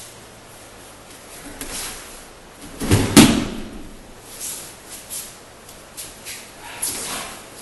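A thrown aikido partner landing on the padded mat with one loud thud and slap about three seconds in, among lighter taps on the mat.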